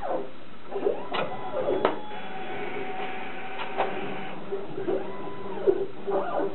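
Stepper-motor whine and clicking from a Thermo Scientific RapidStak microplate mover and Multiskan GO reader as the mover's transfer arm withdraws and the reader's plate carrier pulls the microplate inside. The motor pitch rises and falls with each move, with a few sharp clicks.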